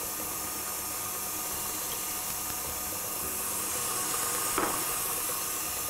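Stand mixer running steadily at medium-high speed with its paddle beating cake batter: an even whirring hiss. A single light tap sounds about four and a half seconds in.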